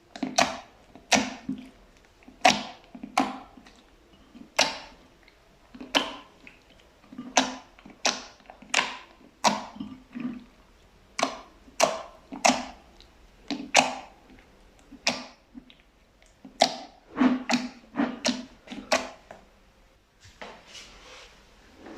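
Fluffy slime pressed by hand, giving loud, sharp pops one or two a second at an uneven pace. The pops stop near the end, leaving a fainter, softer sound.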